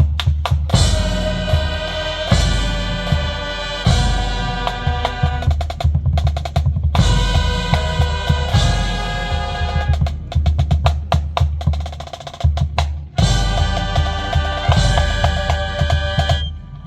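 Marching band playing: brass chords over a drumline of snare and bass drums, broken by short drums-only passages. The music cuts off just before the end.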